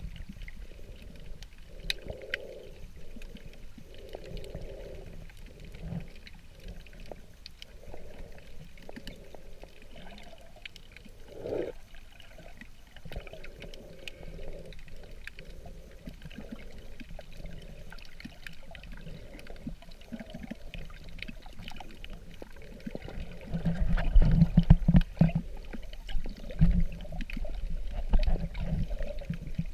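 Muffled water noise heard through an underwater camera near the surface: low sloshing and gurgling, with louder low thumps and knocks in the last several seconds.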